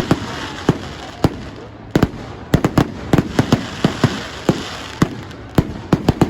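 Fireworks or firecrackers going off: a rapid, irregular string of sharp bangs, about four a second, over a steady hiss.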